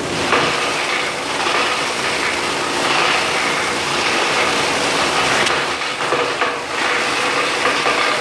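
A 24-inch plastic grinder (granulator) chewing scrap plastic fed into its hopper: a loud, dense, continuous crackle of the plastic being cut, over a steady machine hum.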